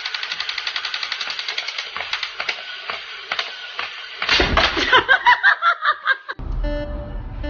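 Battery-operated crawling toy soldier rattling with rapid clicks, about ten a second, that grow uneven after a couple of seconds. A louder run of quick repeated pitched sounds follows for about two seconds. Guitar music starts near the end.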